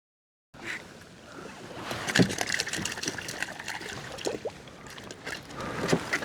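Sea water sloshing and lapping against a kayak hull, with scattered small knocks and clicks. It cuts in abruptly about half a second in.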